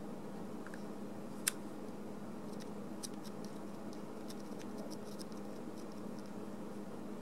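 Small screwdriver working at a crank pin screw on a model locomotive's driving wheel: faint light clicks and scratches of metal on metal, with one sharper click about a second and a half in, over a steady low hum.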